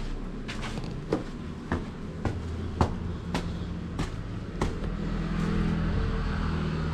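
Sharp knocks at an even pace, a little under two a second, for about the first four and a half seconds. A steady low hum starts about halfway through and runs on.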